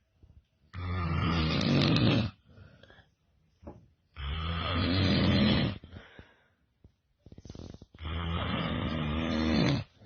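Loud snoring from a sleeper: three long snores, one about every three and a half seconds, each lasting about a second and a half, with quieter breaths between.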